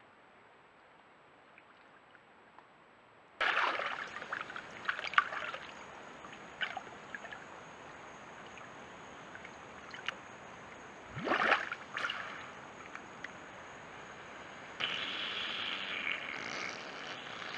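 Swamp water sloshing and gurgling around a moving alligator. It starts suddenly about three seconds in, with irregular splashes and a louder gurgling surge about eleven seconds in.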